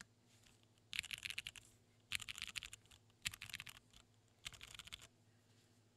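Typing on a mechanical keyboard with broken-in, lubed Cherry MX Purple switches in an aluminium plate under ABS keycaps: four short bursts of rapid keystrokes with short pauses between them.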